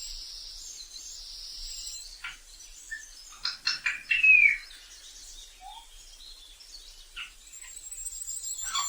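African grey parrot calling: a few sharp clicks and chirps, with a short downward whistle about four seconds in.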